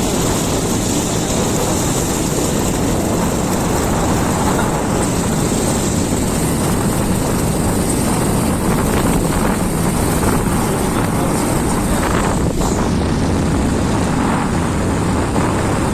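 Motorcycle engine running steadily while riding slowly over a rough road, with wind rushing over the microphone.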